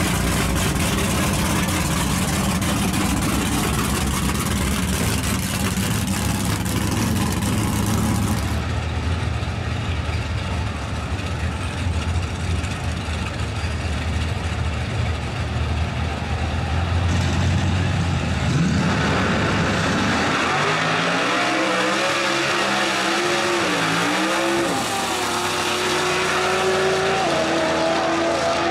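Chevy C10 drag truck's engine running at low speed with a steady deep note, then launching and accelerating hard about two-thirds of the way in. The pitch climbs, drops back at each gear shift and climbs again several times.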